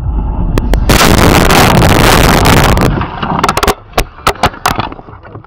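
A car crash recorded by a dashcam. A loud collision noise starts about a second in and lasts about two seconds, followed by several sharp knocks and clicks, and then the sound dies away.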